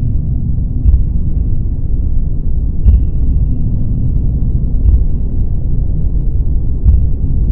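Deep, steady rumbling noise from a space-themed relaxation noise track, with a soft pulse about every two seconds and a faint high tone held above it.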